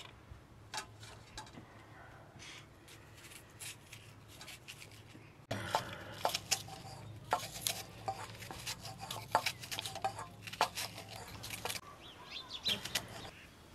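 A kitchen knife slicing a raw onion held in the hand over a steel bowl: a run of short, sharp clicks as the blade cuts through and pieces drop into the bowl. About halfway through the clicks become louder and closer, over a low steady hum.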